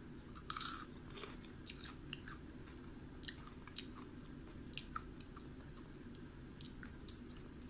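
Crunchy chicharon bitten, with the loudest crunch about half a second in, then chewed with scattered crisp crackles over a steady low hum.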